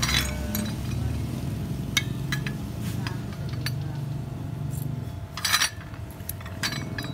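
Small metal scooter CVT parts clinking and tapping against each other and the bench as they are handled, in scattered knocks, with the loudest clatter about five and a half seconds in.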